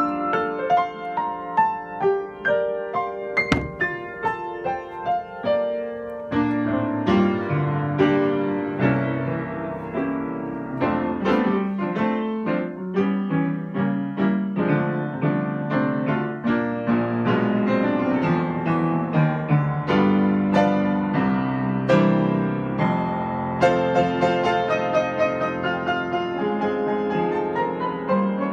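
A 52-inch Kawai professional upright piano played loud, with full, dense chords and runs sounding without a break.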